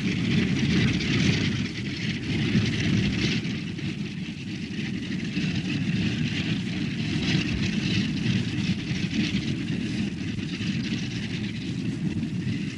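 Steady drone of a propeller airliner's engines, with no clear breaks or single events.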